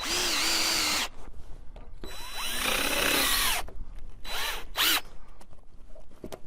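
Power drill driving screws into wood in several bursts: about a second at the start, a longer run in the middle and two short bursts after it, the motor's pitch rising and sagging within each as it labours. The drill is having a hard time, and its clutch slips easily.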